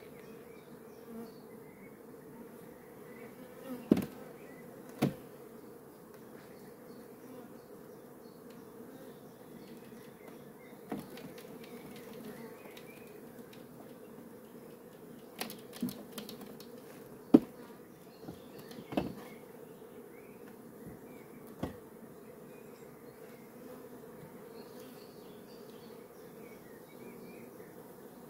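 Honeybees buzzing steadily around an open frame hive, an even hum, broken by a scattering of sharp wooden knocks and clicks as the hive frames are handled, the loudest a little past the middle.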